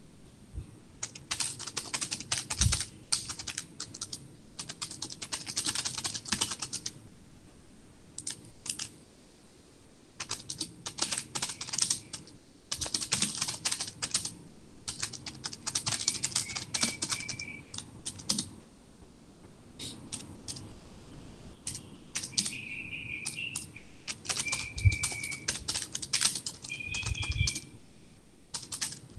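Typing on a computer keyboard in bursts of rapid key clicks with short pauses between them. A few brief high chirps come in over the second half, and there are a few dull thumps, the loudest just before the end.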